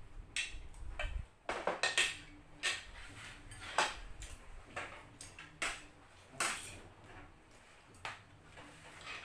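Spoon and fork clinking and scraping against plates and bowls during a meal, in irregular short clicks.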